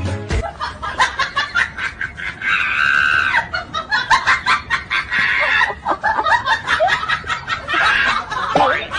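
Young women shrieking and laughing in quick repeated bursts, with long high shrieks about a third of the way in, past the middle and near the end.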